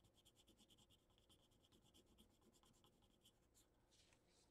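Faint scratching of a brown colored pencil shading on paper in quick, even back-and-forth strokes, which stop about three seconds in, leaving a few single light rubs.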